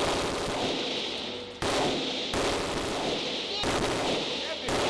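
Gunshots fired one at a time from a semi-automatic gun, about five shots spaced roughly a second apart, each followed by a long echo off the walls of an indoor range.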